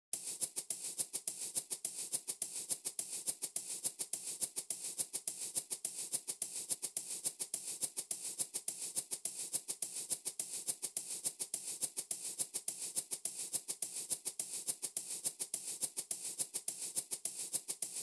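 Music intro: a lone shaker-like percussion loop, quick, even strokes keeping a steady rhythm with no other instruments yet.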